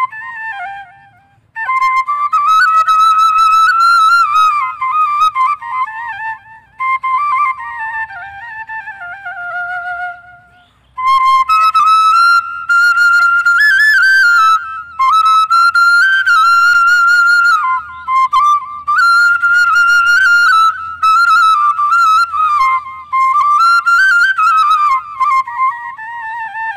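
Bamboo side-blown flute (bansuri) playing a solo melody of a Bhawaiya folk song, with wavering, bending ornaments on the notes. The line breaks off briefly about a second in and again around ten seconds in.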